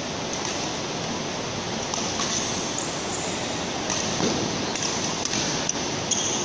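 Badminton rally: a string of short, sharp racket strikes on a shuttlecock, spaced irregularly, over a steady rushing background noise that is the loudest part of the sound.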